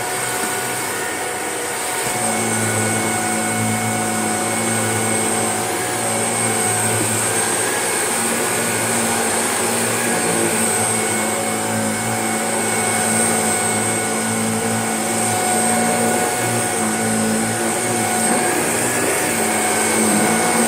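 Shark vacuum cleaner running steadily over carpet, with a high motor whine over the rush of air; its lower hum grows fuller about two seconds in.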